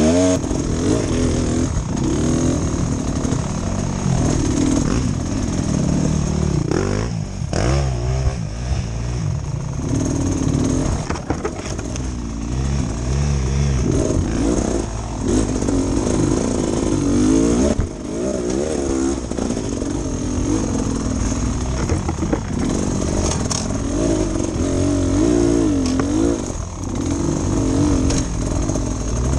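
Beta Xtrainer 300's two-stroke single-cylinder engine revving up and down as the throttle is worked, the bike climbing a rocky trail under load, with a few knocks from the bike striking rocks.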